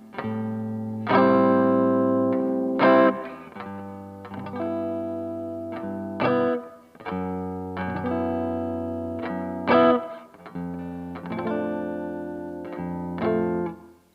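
Electric guitar played through a Boss OD-2 Turbo Overdrive pedal: a slow series of strummed chords, each struck sharply and left to ring out and fade before the next.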